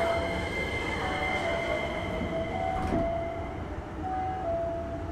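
Two-tone chime, a higher note then a lower one, repeating about every one and a half seconds over the steady hum and high whine of a Hankyu 9300 series electric train. A single knock comes about three seconds in.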